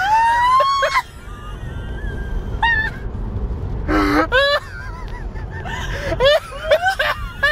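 A woman's high-pitched squealing laughter: one long rising squeal in the first second, then several shorter shrieks and yelps further on. A steady low road rumble from inside the car cabin runs underneath.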